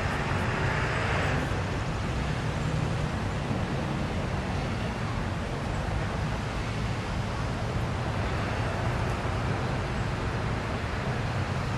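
Steady low engine rumble with outdoor traffic noise, a little louder in the first second or so.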